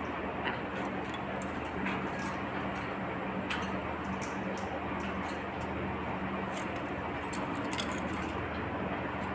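Steady hum and hiss of a room air conditioner, with a few faint, scattered small clicks.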